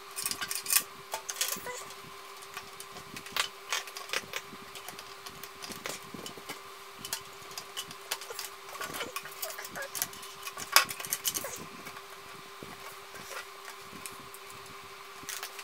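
Irregular clicks, knocks and rattles of power-supply cables and their plastic connectors being handled and plugged into a PC's motherboard and drives, with the sharpest knock about eleven seconds in. A faint steady hum runs underneath.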